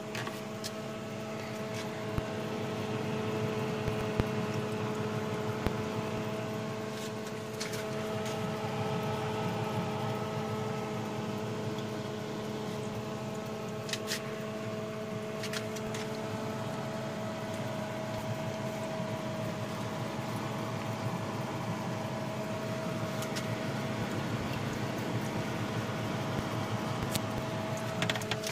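Steady electric hum of a small fan motor running inside a refrigerator-built incubator, with a few faint clicks here and there.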